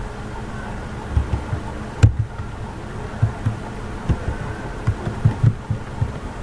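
Computer keyboard being typed on, heard as dull low thumps in short irregular bursts, with one sharper click about two seconds in, over a steady hum.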